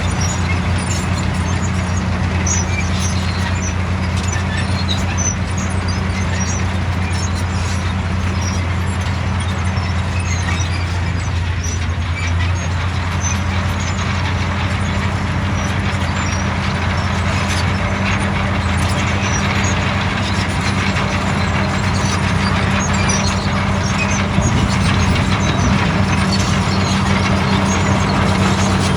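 Bulldozer's diesel engine running steadily at a constant low pitch, with scattered small clicks over it.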